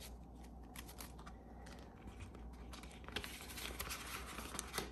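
Faint rustling and soft clicks of paper banknotes being folded and pushed into a plastic cash-binder pouch, a little busier in the second half.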